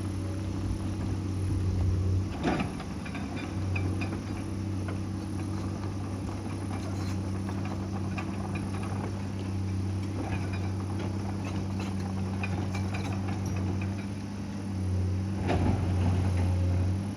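Excavator's diesel engine running steadily, with scattered knocks and rattles; a sharper knock comes about two and a half seconds in and another near the end.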